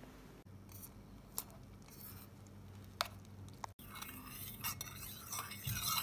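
Molten beeswax being stirred in a stainless steel melting pot, the stirring stick scraping and clinking against the metal from about two-thirds of the way in. A few separate sharp clicks come before it.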